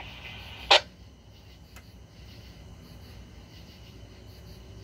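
Police radio scanner channel between transmissions: a short, sharp burst of static under a second in, then faint steady hiss and hum of the idle channel.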